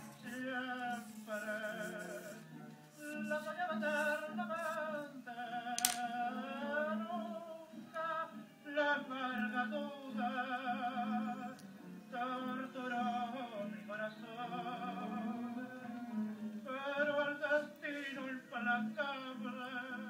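Background music: a singer holding long notes with a wide vibrato over a steady instrumental accompaniment. One sharp click about six seconds in.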